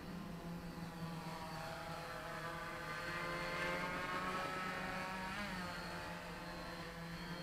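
Hoverthings Flip 385 mm quadcopter on 3S with 10x4.5 propellers, its motors and props buzzing in flight. The buzz rises in pitch and grows louder about a third of the way in, then drops back down after the middle.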